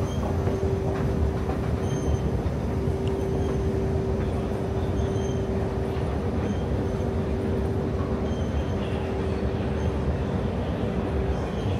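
Sydney Metro train running, a steady rumble with a constant hum.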